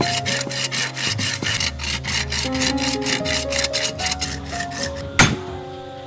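A hand saw cutting through a raw cow bone on a wooden chopping block, with fast back-and-forth strokes at about four or five a second. About five seconds in, a cleaver strikes the bone once, sharp and loud. Background music plays underneath.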